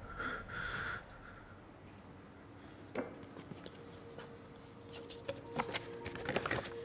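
Paper envelope being handled and opened: one crackle about three seconds in, then a quick run of sharp paper crinkles and rustles near the end as the papers are drawn out.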